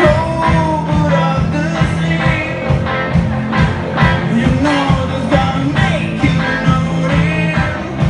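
Live rock band playing, with drums keeping a steady beat under guitar and a male singer's voice through the PA.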